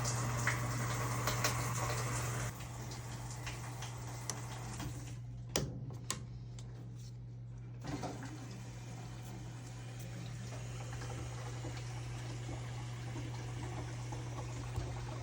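Water rushing into a Whirlpool washer through its inlet valve, opened with a magnet to find where the leak is, over a steady low hum. The flow drops about two and a half seconds in, stops for a few seconds with some clicks, then runs again more softly.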